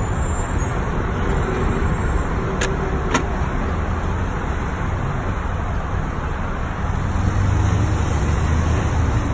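Steady road and tyre noise of highway traffic heard from inside a moving car, with two faint clicks near the three-second mark and a deeper rumble growing louder near the end.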